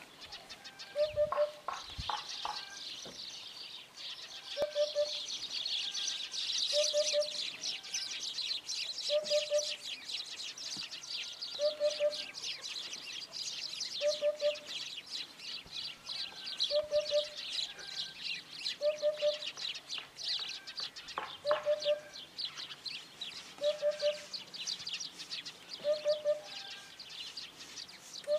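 Eurasian hoopoe singing its soft three-note 'oop-oop-oop', repeated about every two and a half seconds, a dozen times over. A dense, high chattering runs underneath.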